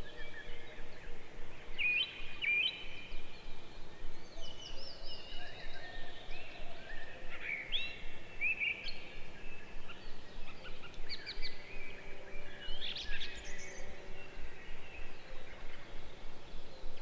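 Several songbirds chirping and whistling: short rising and falling notes over a steady outdoor background hiss.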